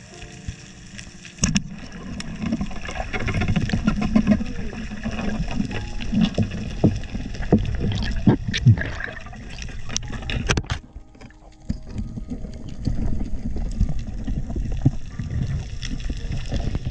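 Underwater sound of a diver swimming along a reef: muffled water rushing and a low rumble of movement, with sharp clicks and knocks scattered through it. The clicks bunch together about halfway through, then a brief lull comes before the rushing picks up again.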